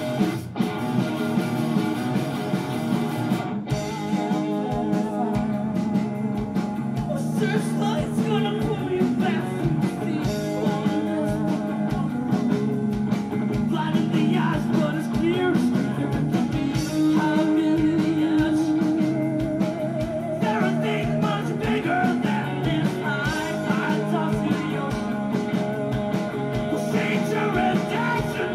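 Live rock band playing electric guitar and bass, with a man singing into the microphone.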